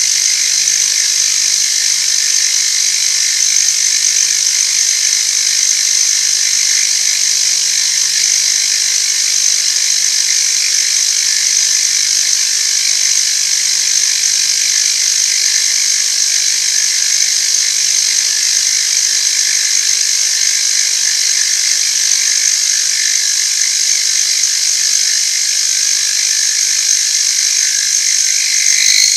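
Powered machine tool cutting metal: a steady, high-pitched cutting noise over the low hum of the machine's motor, unbroken, with an abrupt change right at the end.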